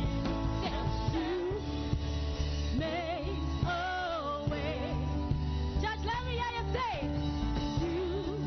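Praise-and-worship music: sustained low bass notes under a singer's wavering, melismatic vocal lines.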